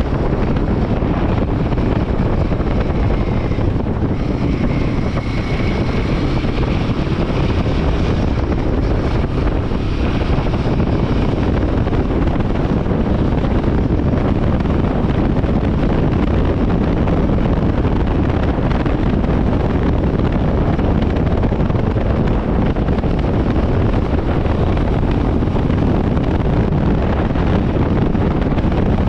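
Royal Enfield Himalayan 450's single-cylinder engine running steadily on the move, with heavy wind noise buffeting the microphone.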